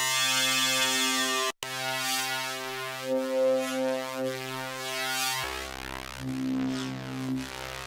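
1V/Oct The Centre Eurorack wavetable module playing a run of synth notes from an ABA wavetable, with bright shimmering sweeps in the timbre. It drops out briefly about one and a half seconds in, and about five and a half seconds in the sound shifts to a deeper, bassier tone.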